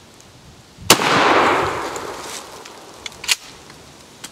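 A single 12-gauge shotgun blast from an Armscor/Rock Island Armory M5 pump shotgun firing a 2¾-inch number 4 buckshot load. The sharp report comes about a second in and dies away over a second or so. Two short sharp clicks follow about two seconds later.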